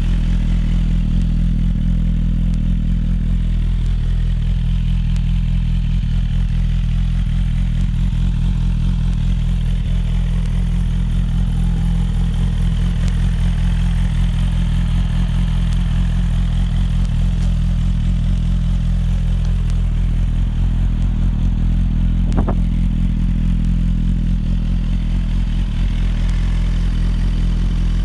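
2017 Suzuki GSX-R1000R's 999.8 cc inline-four idling steadily through a Yoshimura aftermarket exhaust, with no revving.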